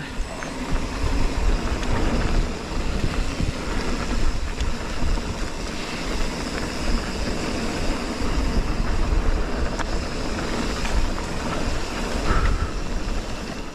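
Wind buffeting the microphone of a camera riding along on a mountain bike descending a trail, with tyre and rattle noise from the bike underneath, unsteady throughout.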